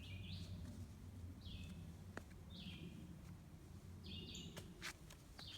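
A bird calling faintly outdoors: short chirps that drop in pitch, repeated about once a second, over a low steady background rumble.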